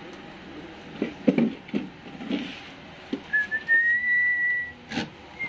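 A person whistling one long note that rises slightly and then holds, starting about three seconds in. Before it there are a few knocks and rattles from motorcycle wiring and parts being handled, and a sharp click comes near the end.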